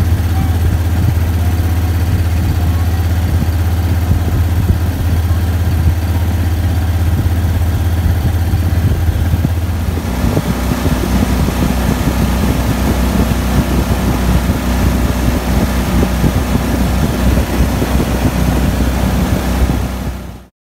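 35-horsepower Swamp Runner longtail mud motor running steadily, pushing a loaded boat along at cruising speed. About halfway through, the engine note shifts higher, and near the end the sound fades out.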